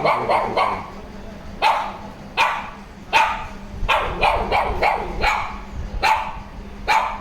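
Dog barking repeatedly: a dozen or more short, sharp barks at irregular intervals, some coming in quick runs.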